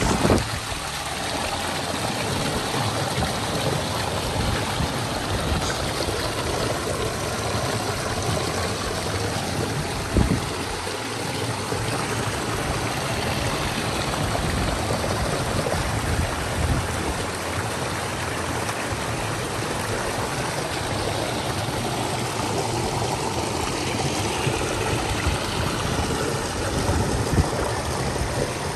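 Creek water splashing steadily over boulders in a small cascade, a close, even rush of falling water.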